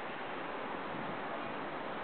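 Steady, even wash of distant city traffic noise, with no single vehicle standing out.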